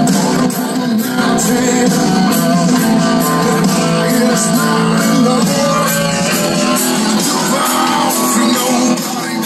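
A rock song with singing and electric guitar plays loud through a truck's DS-18 component door speakers and dash-pod speakers and tweeters, run with no subwoofer, so the deep bass is thin. It is picked up by a phone's microphone.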